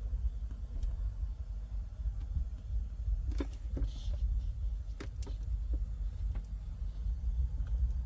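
Steady low rumble inside a car cabin, with a short cluster of sharp clicks and knocks about three to five seconds in.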